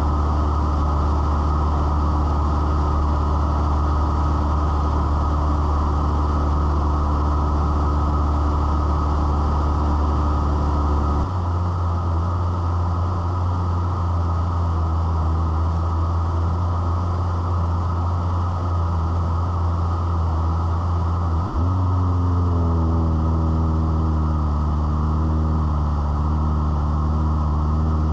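Cessna 172's single piston engine and propeller droning steadily in flight, heard from inside the cabin. The pitch of the drone shifts about eleven seconds in and again about twenty-one seconds in, then edges slightly higher.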